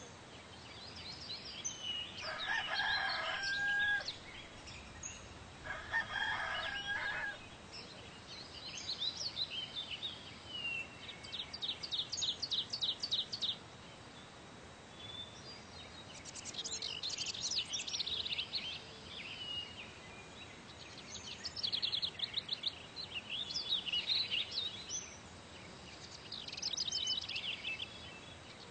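Birdsong: small birds chirping and trilling in quick repeated notes, with a rooster crowing twice, about two and six seconds in.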